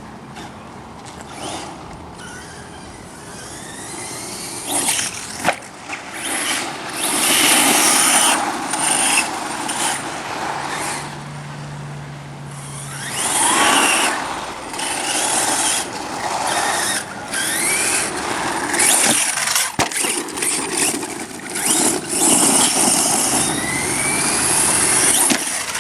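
Brushless electric RC monster truck driving hard: its motor whines up in rising pitch several times as it accelerates, over a rushing tyre noise, with sharp knocks from jumps and landings.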